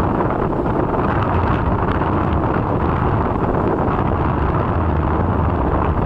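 Steady rush of wind buffeting the microphone on a moving motorcycle, mixed with the motorcycle's engine and road noise.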